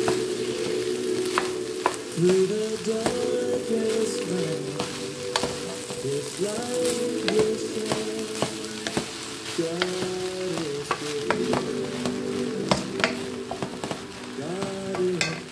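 Shrimp fried rice sizzling in a pot while a wooden spoon stirs and scrapes through it, the spoon clicking against the pan many times. Background music with a melody plays underneath.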